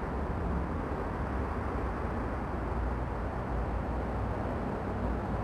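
Steady outdoor background noise, a low uneven rumble with a hiss above it: wind on the camcorder microphone and distant city traffic.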